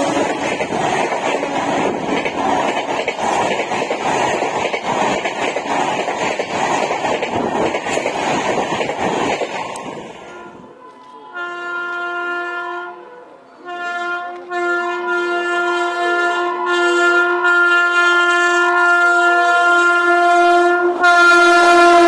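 Passenger coaches rushing past at speed close by, a loud steady roar of wheels and wind. After a cut, an Indian Railways WAP-7 electric locomotive's multi-tone air horn sounds: two short blasts, then one long held blast.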